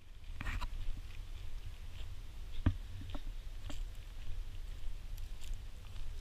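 Irregular light footsteps and scuffs on a paved path, over a steady low rumble of wind or handling on the microphone.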